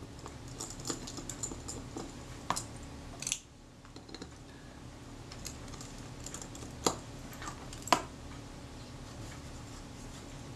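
Light, irregular clicks and taps of a small screwdriver and metal parts as a Kodak Retina IIIS camera's front plate is taken apart by hand. A few sharper clicks stand out, the loudest two about a second apart in the second half.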